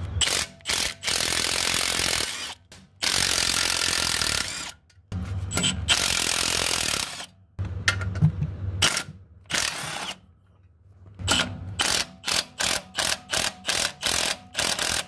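Cordless impact wrench on a socket extension spinning out the clutch pressure plate bolts. It runs in several long pulls of a second or two, then in a string of short quick bursts near the end.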